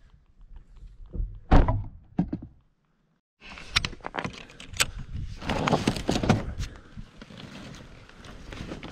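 Hands working a rooftop tent: a loud thunk about a second and a half in, then, after a short break, a busy run of clicks, knocks and rustling as the tent and its straps are handled.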